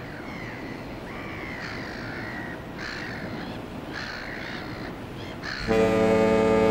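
Birds call repeatedly. About five and a half seconds in, the cruise ferry's horn sounds one loud, steady, deep blast.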